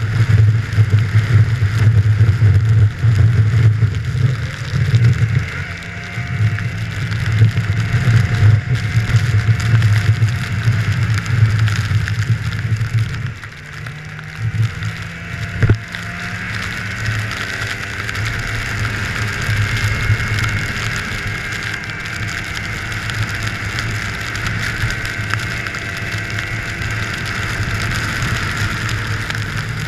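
Snowmobile engine and track running under way, with a steady low hum; the throttle eases off about halfway through, and it runs steadier and a little quieter after.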